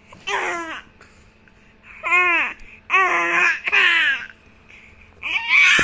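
Baby babbling in four short, high calls that bend up and down in pitch, then a louder, longer call starting near the end.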